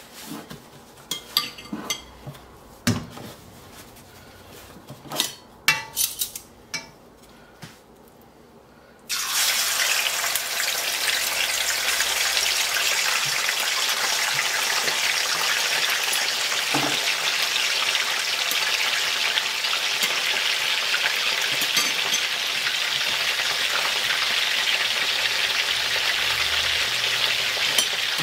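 A few scattered clinks and knocks of kitchen utensils. About nine seconds in, a steady loud sizzling starts suddenly: skin-on chicken thigh pieces frying in vegetable oil in a wok, and it goes on to the end.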